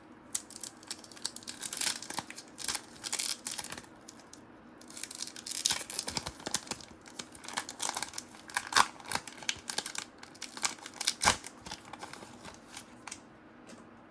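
Paper wrapper of a trading-card pack being torn and crinkled, an irregular crackly rustling with sharp clicks, busiest in the middle.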